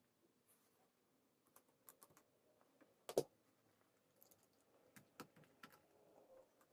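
Faint, scattered small clicks and taps against near silence, with one sharper click a little over three seconds in and a cluster of lighter ones about five seconds in.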